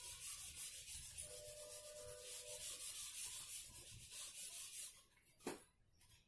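Whiteboard eraser scrubbed back and forth over marker lines on a whiteboard, a run of quick rubbing strokes that stops about five seconds in, followed by a single sharp click.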